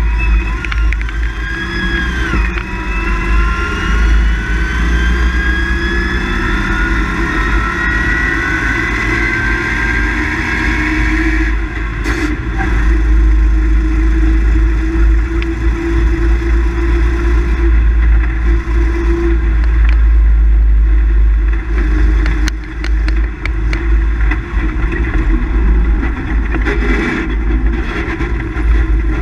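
Rally car engine heard from inside the cockpit, accelerating hard with its pitch climbing steadily for about ten seconds, then dropping away. It keeps pulling through the rest of the stretch over heavy low road and drivetrain rumble, with a few sharp knocks and rattles.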